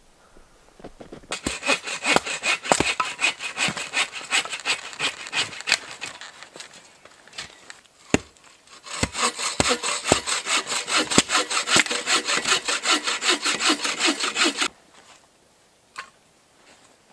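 Hand saw cutting through wood in fast, even back-and-forth strokes, in two runs of several seconds each with a short pause between.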